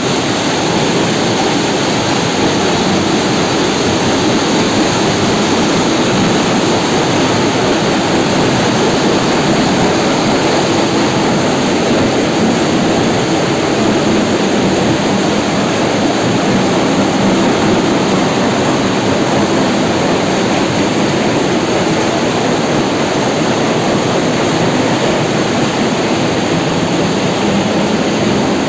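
Heavy machinery at an iron ore mine running, a loud steady noise that does not change.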